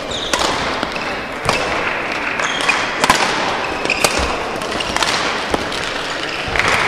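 Badminton rackets hitting a shuttlecock back and forth in a rally: five sharp cracks, one about every second or so. Short squeaks from shoes on the court floor come in between, over a steady background of hall noise.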